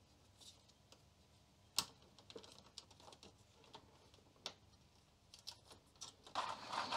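Faint, scattered clicks and taps of small metal supports and plastic as they are fitted into a computer keyboard's plastic key frame by hand, with a sharper click about two seconds in. Handling noise builds near the end.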